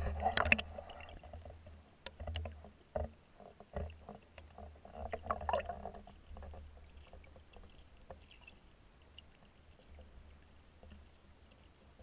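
Muffled water sloshing and splashing heard through an underwater camera housing over a low, steady rumble. Splashes and knocks cluster in the first half, loudest in the first second. After that it settles to the low rumble with faint clicks.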